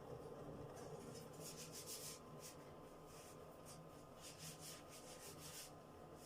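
Faint, irregular scraping or rubbing strokes, about a dozen short ones over several seconds, over a low steady hum.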